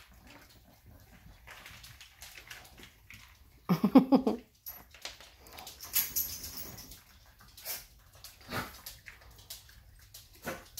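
A puppy gives a short, loud cry, a quick run of pitched yips lasting about half a second, about four seconds in. Fainter scattered clicks and scuffles come before and after it.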